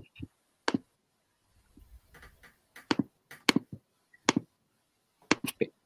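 Irregular sharp clicks, several in quick pairs, from someone working a computer, such as mouse and keyboard clicks, while switching back to a shared slide screen.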